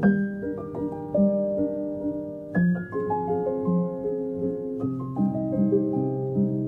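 Instrumental background music: runs of notes stepping downward from high to low, with a new run starting about every two and a half seconds.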